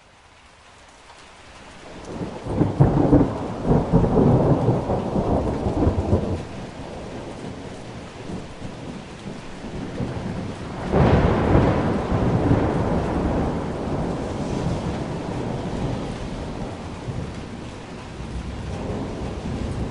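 Thunderstorm: steady rain with two rolls of thunder, the first building about two seconds in and rumbling for several seconds, the second starting suddenly about eleven seconds in and rolling away slowly.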